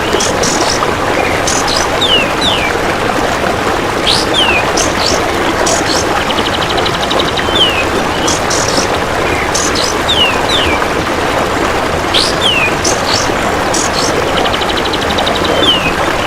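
A looped bird-training track of a kapas tembak songbird and a golden grasshopper. Short falling whistles and sharp high chips come every second or two over a loud, steady rasping hiss, with a fast ticking trill about halfway through.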